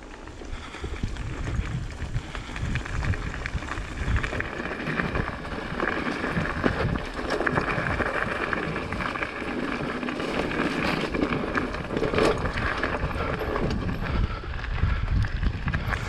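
Mountain bike riding down a wet, greasy trail: a steady rumble of tyres over mud and rock with the bike rattling and knocking, and wind on the microphone.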